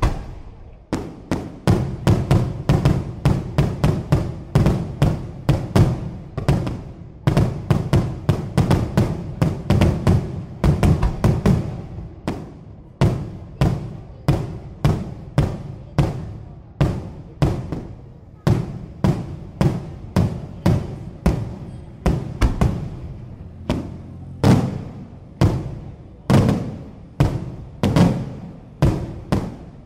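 Daytime fireworks: a barrage of aerial shell bursts going off overhead, several sharp bangs a second, each with an echoing tail. From about twelve seconds in, the bangs come more separately, roughly two a second.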